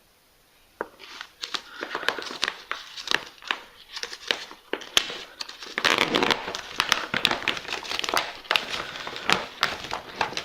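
Plastic MRE bag crinkling and crackling as it is peeled open at its seal and the packets inside are handled, starting about a second in.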